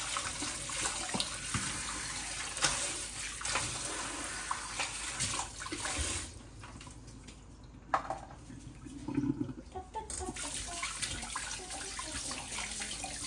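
Kitchen tap running into a stainless-steel sink while dishes are rinsed by hand, with a few clinks and knocks of dishes. The water sound drops for a few seconds in the middle, then picks up again.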